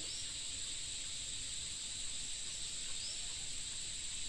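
Steady high-pitched drone of an insect chorus, with two short rising chirps, one near the start and one about three seconds in.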